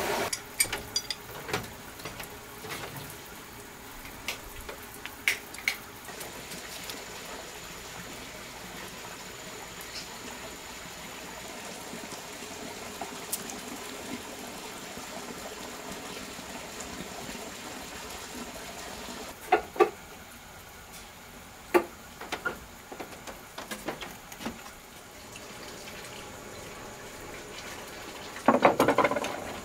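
Steady running water, trickling and splashing, with scattered light footsteps and knocks over it and a short louder scrape near the end.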